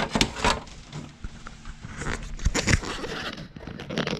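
Dry leaves crunching and crackling as they are handled in a car's radiator area, with irregular knocks and clicks.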